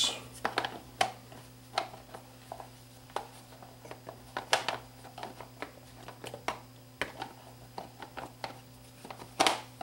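Hands fitting and handling the vented plastic front cover of an electric fan motor during reassembly: scattered light plastic clicks and knocks, with a louder knock near the end.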